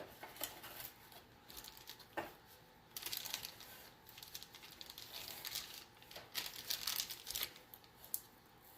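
Packaging crinkling and tearing as it is handled and opened, in irregular bursts of crackle that are busiest from about three seconds in.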